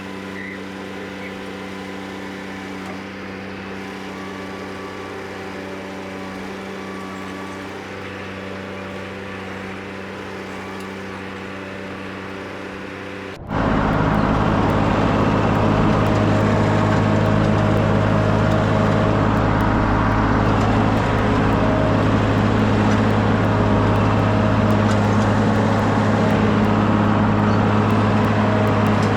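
Skid steer engine running steadily. About halfway through, the sound jumps suddenly to a much louder, rougher running.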